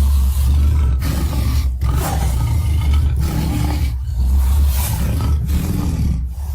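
Giganotosaurus sound effect: a deep, rumbling growl-roar that runs on with short breaks every second or two.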